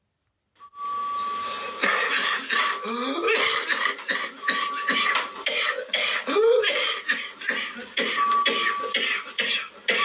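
Whooping cough (pertussis) paroxysm: runs of rapid, back-to-back coughs, each run broken by a high-pitched whoop that rises in pitch as air is drawn in. This happens twice, and again at the very end.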